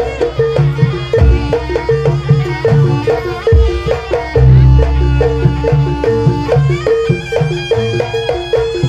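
Live Javanese traditional music for a Buto dance: drums beating a steady rhythm under a repeating pitched melody.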